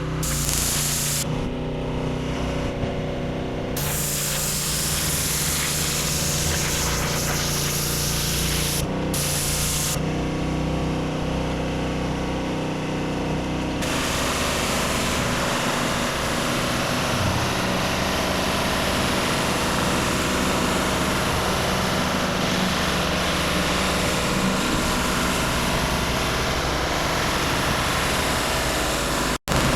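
Gas-engine pressure washer running steadily while its high-pressure water jet hisses onto concrete. The spray noise fades twice, about a second in and again about ten seconds in, while the engine keeps running.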